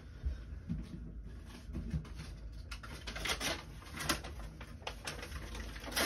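Faint clicks and rustles of someone handling things out of view while fetching a sheet of paper, over a low room hum, with a few sharper ticks between about three and four seconds in.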